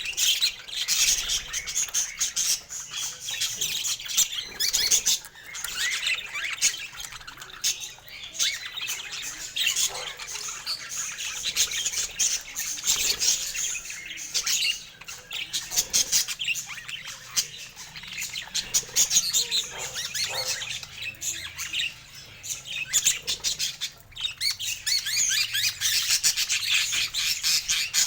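A group of budgerigars chattering continuously, with dense, rapid chirps, warbles and squawks.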